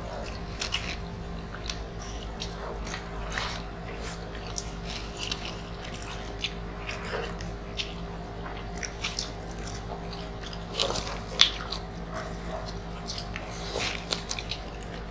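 Close-miked eating sounds of people chewing and biting grilled chicken and rice, with many small, sharp mouth and food clicks scattered throughout. A steady low hum runs underneath, and one sharper click comes about eleven seconds in.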